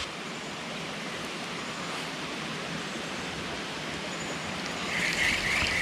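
Creek water flowing steadily over a riffle, a constant rushing hiss, growing a little louder near the end.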